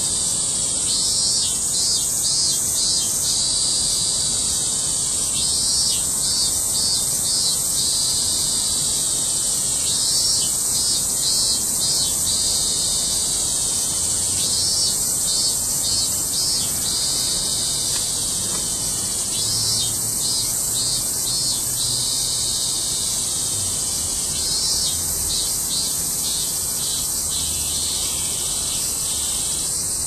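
A chorus of cicadas: a steady high-pitched drone, with a pulsing call from another cicada that comes back about every four to five seconds.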